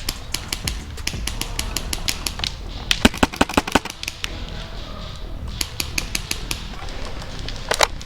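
Airsoft guns firing in rapid strings of sharp clicking shots, about six or seven a second. The loudest, densest burst comes about three seconds in.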